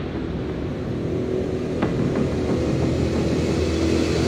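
A steady rushing noise with a low hum, slowly growing louder, with a faint tick about two seconds in.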